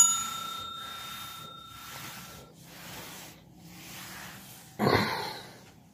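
A single bright bell-like metallic ring that fades out over about two seconds, followed near the end by a short rough rustling sound.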